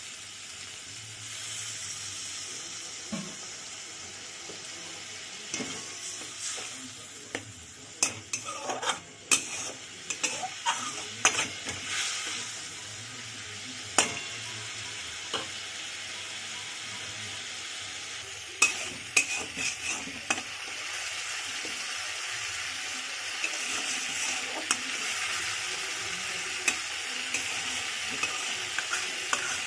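Masala of tomato, green chilli, turmeric and cumin sizzling in oil in a kadai as it is stirred and fried down. A spatula scrapes and knocks against the pan in clusters of sharp clicks, about a third of the way in and again about two-thirds through, and the sizzle grows louder near the end.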